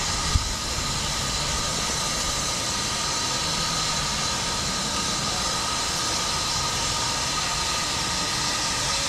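Steam locomotive hissing steadily, with no exhaust beat, and a brief thump about half a second in.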